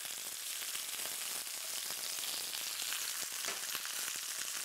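Lamb rib chops searing in hot garlic olive oil in a frying pan: a steady sizzle with many small crackling pops.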